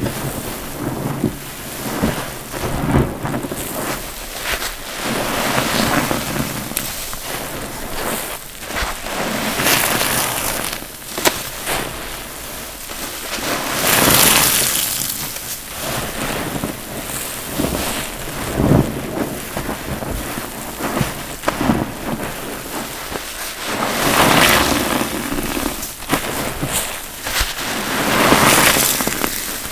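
Wet block sponges being squeezed and rinsed by hand: water squelching and splashing out of them in repeated surges, with sharp crackles among them.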